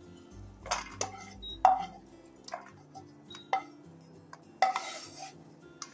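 Metal spoon clinking and scraping against a pan as roasted almonds are scooped out, several sharp clinks with a short scraping rush about five seconds in, over soft background music.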